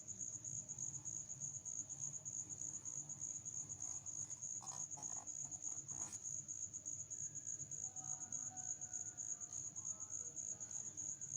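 A cricket chirping steadily with a high, fast-pulsing note, with a faint low hum beneath and a few faint knocks about halfway through.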